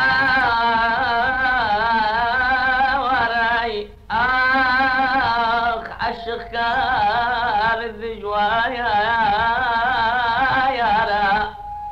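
A male voice singing a Kurdish song in long, wavering held notes, three phrases with short breaks between them.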